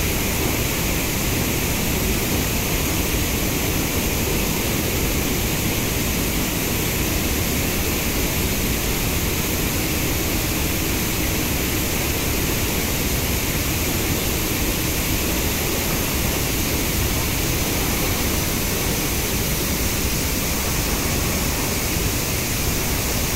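Steady rush of water pouring through a dam's radial gate, an even, unbroken noise.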